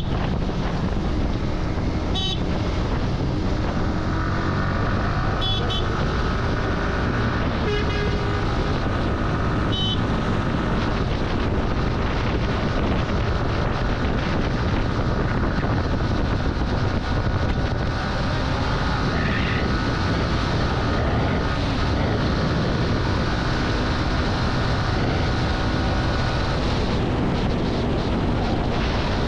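Yamaha sport motorcycle running steadily at highway speed, its engine mixed with wind and road noise, with about five short horn toots in the first ten seconds.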